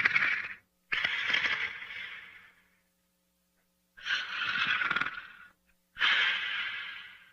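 Snoring breaths of a sleeper: a series of noisy, hissing breaths, each starting suddenly and fading away over about a second and a half, about one every two seconds.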